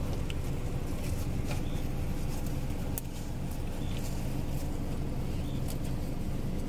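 Car engine idling, heard from inside the cabin: a steady low hum. A few faint short high chirps sound every second or two.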